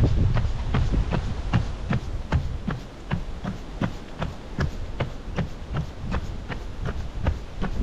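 A runner's footsteps on a wooden boardwalk, a steady quick rhythm of about three steps a second, over a low rumble.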